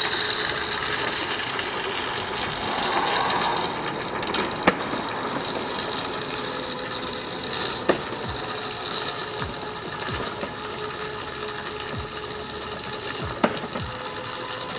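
Push broadcast spreader (Echo RB-60) rolling over wet asphalt while it spreads rock salt: its gear drive rattles and clicks over a steady hiss of flung salt. The sound fades steadily as the spreader moves away, with a few sharp ticks along the way.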